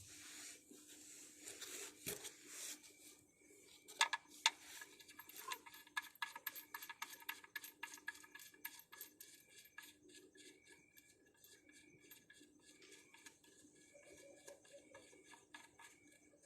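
Light metallic clinks and clicks of tools and small metal parts being handled, with two sharper clinks about four seconds in, followed by a run of quick ticks for several seconds.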